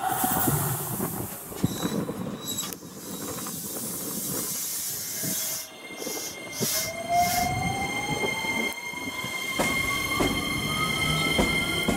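JR West 287-series electric limited express pulling away from the platform. A burst of hiss comes in the first second. From about halfway, the traction motors whine, rising steadily in pitch as the train gathers speed, over the rumble of the wheels.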